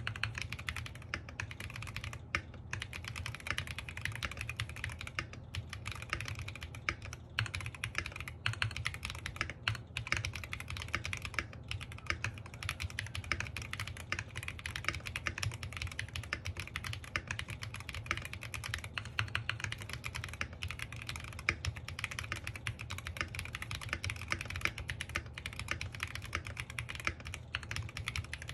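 NJ68 Max mechanical keyboard with pudding keycaps, foam-modded with plate, switch and bottom foam, typed on fast and continuously: a steady stream of keystrokes with only a few brief pauses. A faint steady low hum runs underneath.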